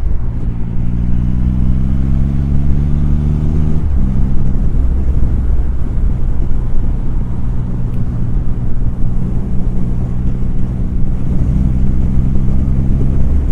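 Triumph Rocket III Touring's inline-three engine, heard from the rider's seat, pulling up through a gear with its note rising. About four seconds in it shifts up, then it holds a steady note at cruising speed.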